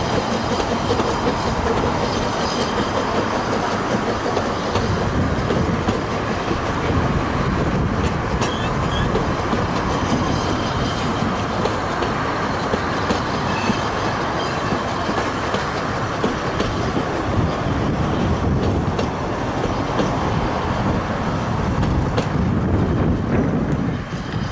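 Narrow-gauge steam train pulling out, its coaches rolling past close by with steady clickety-clack from the wheels over the rail joints, under the working of the steam locomotive as it draws away.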